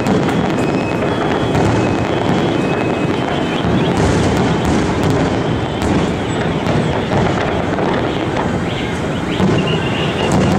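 A large fireworks display going off continuously: rapid booms and crackling merge into a dense, steady rumble, with a few brief high whistles above it.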